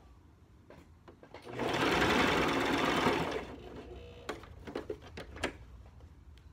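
Brother sewing machine running a short stretch of stitching through fabric, starting about one and a half seconds in and stopping about two seconds later. A few light clicks follow.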